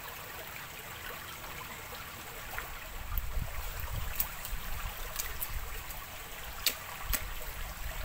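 Shallow stream running over rocks, a steady trickle. A low rumble joins it from about three seconds in, with a few sharp clicks.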